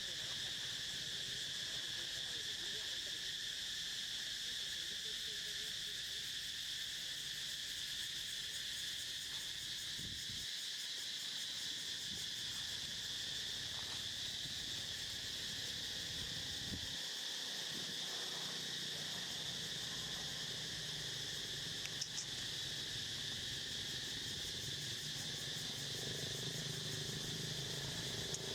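Steady chorus of insects trilling in several high, even-pitched bands, unbroken throughout, with a single faint click about three-quarters of the way through.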